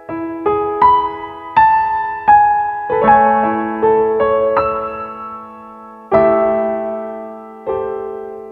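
Slow, gentle piano music: single notes struck one after another, each left to ring and fade, with fuller chords over a held lower note about three and six seconds in.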